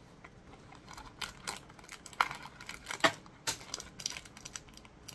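Plastic snack wrapper being handled and unwrapped: irregular crinkles, crackles and small clicks.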